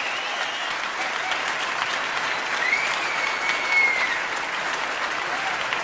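Concert audience applauding steadily after a jazz piece, with one long high whistle from the crowd about two and a half seconds in.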